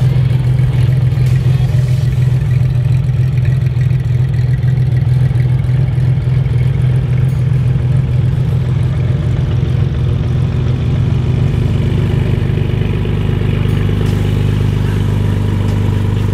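Air-cooled flat-six of a Gunther Werks Porsche 993 Speedster running at idle with a steady low hum; around twelve seconds in, the hum shifts to a lower, smoother tone.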